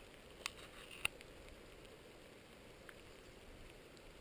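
Light rain: a faint steady hiss with a few sharp ticks of drops striking the camera, the loudest about a second in.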